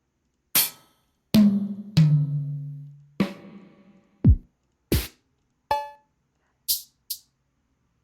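Drum-machine samples in Hydrogen played one at a time, about nine single hits with gaps between: ringing tom-like strikes early on, a deep kick falling in pitch a little after four seconds in, snare-like cracks, and two short high ticks near the end.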